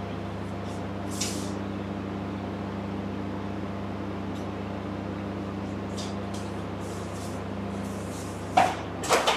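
Microwave oven running with a steady low hum while it heats chocolate to melt it. The hum cuts off abruptly near the end, among a couple of short clunks.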